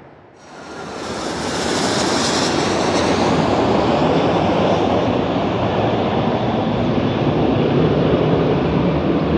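Twin-engine jet airliner passing low on final approach: loud engine noise that builds over the first second and then stays steady, with a high hissing whine strongest about two seconds in that fades away.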